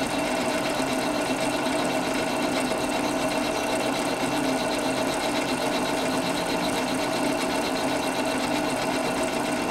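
Centre lathe running at a steady speed during a facing cut, a cutting tool traversing across the end face of a workpiece turning in the chuck: a steady machine hum.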